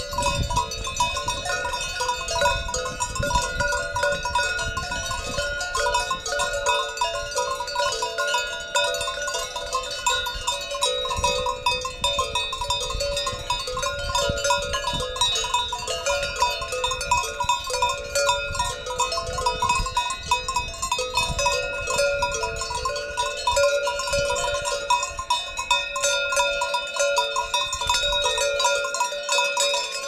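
Cowbells on grazing cattle clanking continuously, several bells of different pitches ringing over one another.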